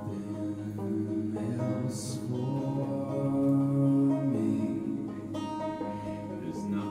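Man singing a folk song, accompanying himself on a plucked banjo.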